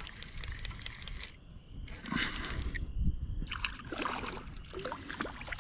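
Water sloshing and splashing around a kayak, with scattered small clicks and knocks.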